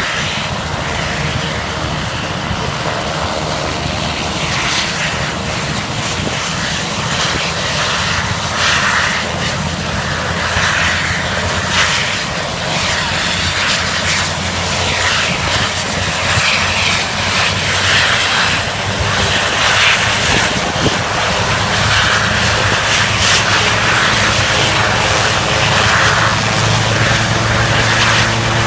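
Helicopter's rotor and engine running steadily, slowly growing louder.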